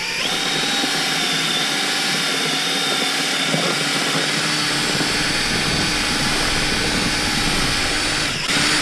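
DeWalt 18V XR cordless drill running at a steady speed with a paddle mixer, churning soaked paper pulp in a plastic bucket. Its whine briefly dips near the end and picks up again.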